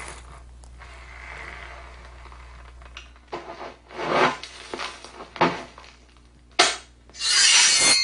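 A run of irregular rubbing and scraping strokes starting about three seconds in, with a sharp hit near the end and then a longer, loud, harsh scrape. A steady low hum lies under the first few seconds.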